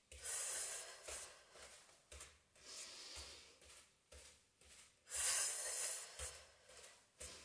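A woman breathing deeply and audibly: one breath right at the start and a longer, louder one about five seconds in. Soft low thumps come about once a second underneath.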